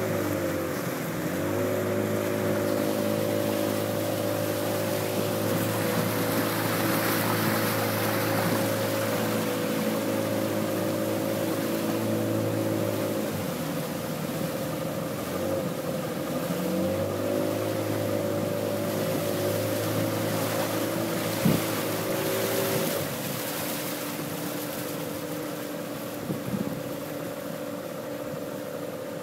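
Motorized canoe's engine running steadily over the hiss of water and air. About halfway through it drops in pitch for a few seconds, then picks up again, and it slows once more for the last few seconds. There is a single sharp knock a little after two-thirds of the way through.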